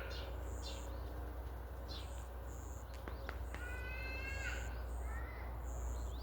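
Outdoor rural ambience: a high chirping that pulses about twice a second over a steady low rumble, with a few rising animal calls, the clearest about two thirds of the way in.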